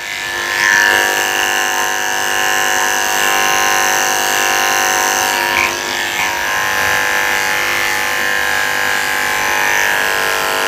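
Electric dog grooming clippers with a #10 blade running steadily as they shave the tips of a Yorkshire terrier's ears, a constant motor hum.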